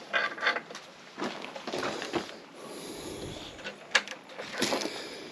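Scattered clicks, knocks and scrapes of hand work on a skid steer's hydraulic hose fittings, with one sharp click about four seconds in.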